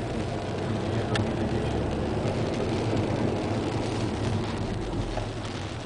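Car driving on a wet road, heard from inside the cabin: a steady engine and tyre rumble, with a single sharp tick about a second in.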